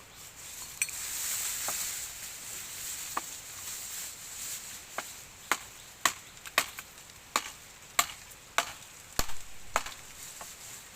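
A soft hiss for the first few seconds, then a run of sharp strikes, about two a second, from roughly halfway on.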